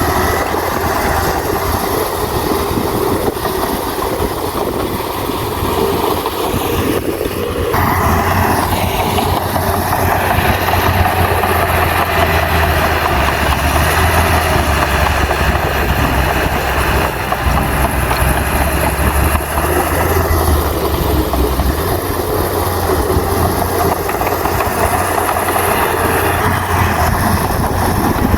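Bulldozer's heavy diesel engine running steadily at work, with a deep low drone under a dense mechanical clatter; the sound shifts and grows brighter abruptly about eight seconds in.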